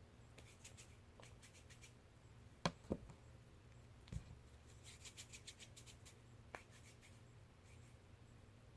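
Hands rolling Play-Doh into lines on a tabletop: faint rubbing and soft ticks, with two louder knocks close together about three seconds in.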